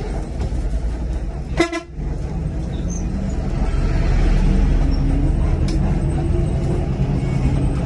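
One short vehicle-horn toot about a second and a half in, over the steady low rumble of a bus on the move.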